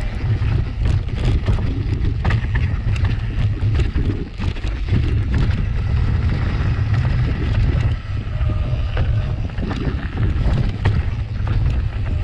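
Wind buffeting the camera microphone as a mountain bike rides down a rough trail, with scattered clicks and rattles from the bike over the ground.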